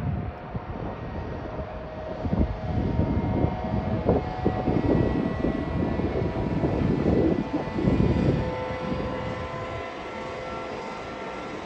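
Electric locomotive hauling a container freight train past, the wagons rumbling and clattering over the rails with several steady whining tones above. The sound is loudest in the middle and eases near the end as the wagons roll by.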